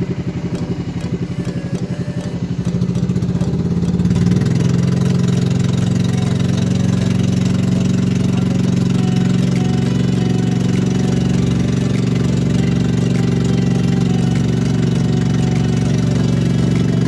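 A small engine running. It picks up speed about three to four seconds in, then holds a steady pace.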